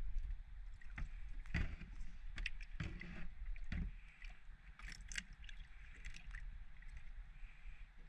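Water sloshing and scattered knocks from a plastic tub on a boat deck, mostly in the first half, over a low wind rumble on the microphone.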